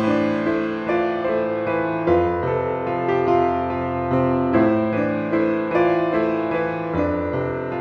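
Background piano music: a gentle melody of notes struck about every half second over sustained lower chords.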